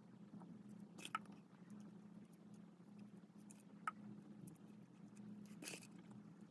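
Near silence with a faint steady hum, broken by small handling sounds from fingers working liquid latex and powder on a foam mannequin head: a sharp click about a second in, another near four seconds, and a brief rustle near the end.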